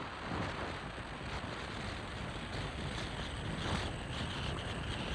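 Wind rushing over a phone microphone with the steady road noise of a car driving along.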